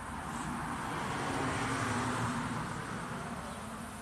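A vehicle passing by, its noise swelling to a peak about halfway through and then fading away.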